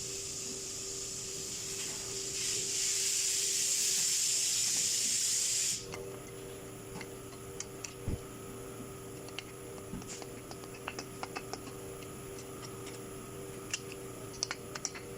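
A steady pressurised hiss, growing louder about two and a half seconds in, then cutting off suddenly near six seconds; after it come scattered light clicks and taps.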